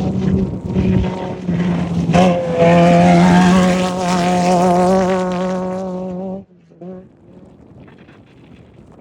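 Off-road race vehicle's engine running loud, its pitch wavering slightly. The sound gets louder about two seconds in, then cuts off abruptly about six and a half seconds in, leaving only faint background noise.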